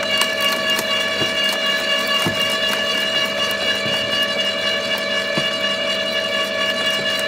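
Makita UD2500 electric garden shredder, a slow-turning roller type, running with a steady gear whine as thin branches are drawn in and crushed. Short cracks and snaps of the wood come at irregular moments.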